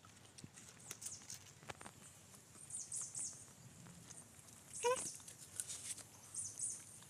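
A puppy gives one short whimper with a rising pitch about five seconds in, amid scattered faint high chirps and small clicks.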